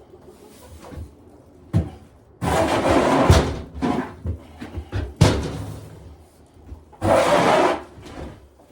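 Old bedding on a chicken coop floor being scraped up and shovelled with hand tools: three rough scraping swishes about a second long, with short knocks of the tool between them.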